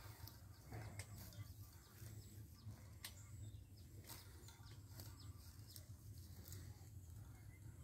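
Near silence: faint outdoor ambience with a low rumble and scattered soft clicks.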